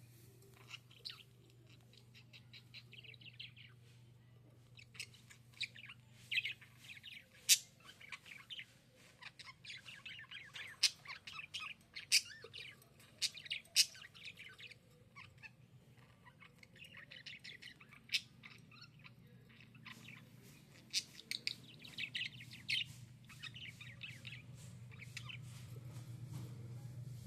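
Budgerigar chirping in rapid runs of short chirps, broken by a few sharp, louder calls. A steady low hum underneath grows louder near the end.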